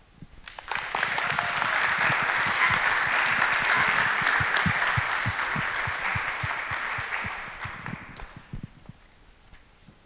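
Audience applauding. The clapping swells about half a second in, holds steady, then dies away over the last couple of seconds, welcoming a guest speaker.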